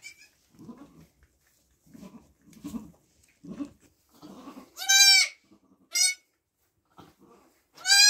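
Nigerian Dwarf goats calling: a series of soft, low, short grunts, then loud, high-pitched bleats. There is one long bleat about five seconds in, a short one a second later, and another near the end.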